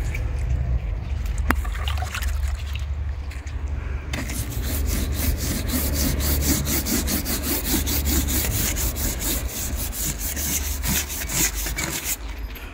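Stiff plastic scrubbing brush scrubbed rapidly back and forth over a caravan's textured outer wall panel, a dense scratchy rasping that sets in about four seconds in and stops near the end. Before that there are only a few scattered scrapes and taps.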